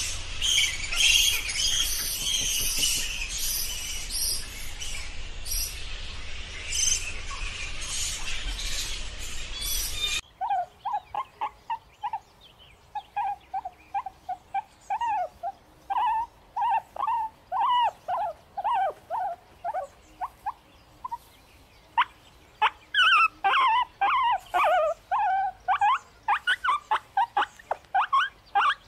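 A roosting flying-fox colony screeching and chattering, a dense high-pitched din. About ten seconds in it cuts to wild boar piglets squealing in short, quick squeaks as they play-fight, coming faster and louder near the end.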